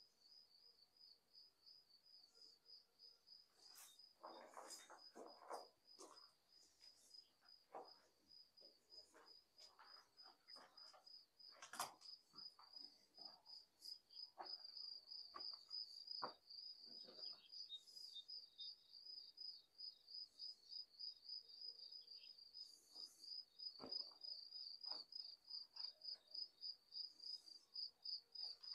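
Faint, steady high-pitched trill of a cricket, a rapid run of even pulses that never stops, with scattered faint knocks and rustles of footsteps on debris.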